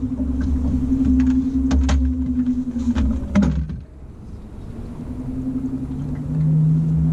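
Boat motor running steadily with a low pulsing rumble. It drops away about three and a half seconds in and comes back a second or so later at a lower pitch. A few sharp clicks and knocks sound over the first half.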